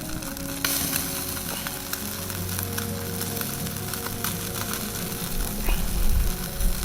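Chicken-skin skewers sizzling over hot charcoal, the rendering fat spitting in a dense hiss of small crackles and pops. A few low thumps come near the end.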